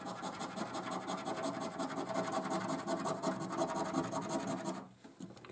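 A coin scratching the silver latex coating off a paper scratchcard in quick, rasping back-and-forth strokes. The scratching stops near the end.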